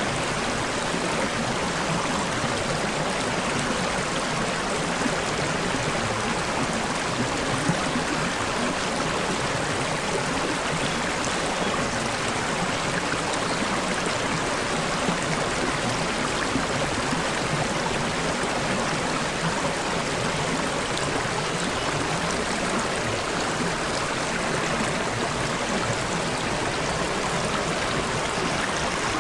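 Running water in a small stream, babbling steadily without a break.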